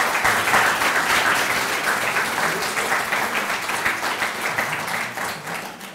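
Audience applauding: many hands clapping in a dense, steady patter that thins out and dies away near the end.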